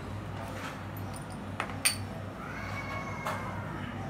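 Two light clinks of steel kitchenware about one and a half and two seconds in, then a faint drawn-out high cry that sounds like a cat's meow, over a low steady hum.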